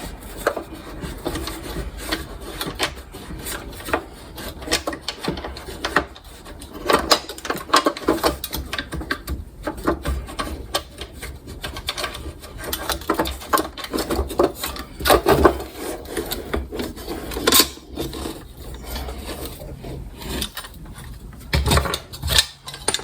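Irregular metal scraping, rubbing and clinking as a wing nut is worked loose and parts of a kerosene heater's wick assembly are handled and lifted out.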